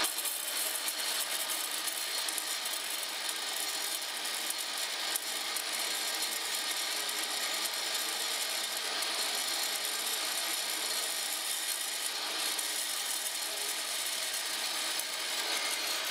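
Metal-cutting bandsaw running steadily, its blade cutting through 3/8-inch threaded steel rod.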